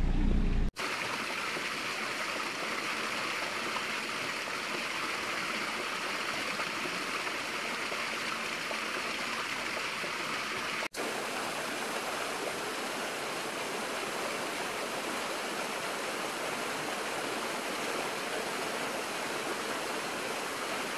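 Mountain stream running over rocks, a steady rush of water. It starts suddenly about a second in and drops out for an instant about eleven seconds in.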